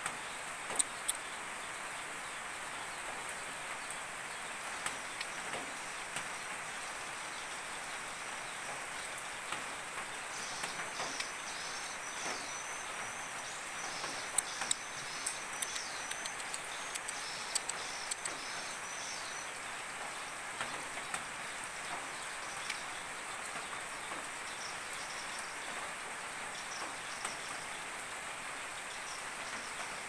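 Steady hiss of rain, with a run of quick, high, repeated chirping notes from a white-rumped shama from about ten to twenty seconds in, and scattered sharp clicks.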